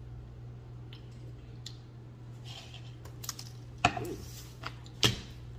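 Light clicks and rustles of things being handled on a table, with two sharp knocks about a second apart near the end, over a steady low hum.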